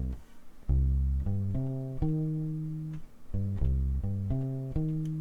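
Ibanez SRH500F fretless electric bass with tapewound strings, played direct with a small piece of soft sponge foam muting the strings at the bridge. It plays two short phrases of plucked notes, each ending on a held note that rings for about a second.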